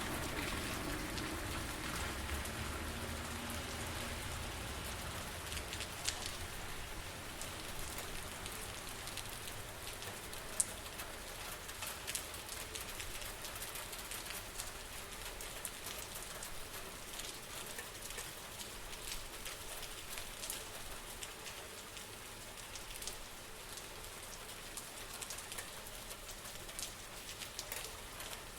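Steady rain falling on hard surfaces, with many close raindrops ticking through it and one sharper drip about ten seconds in.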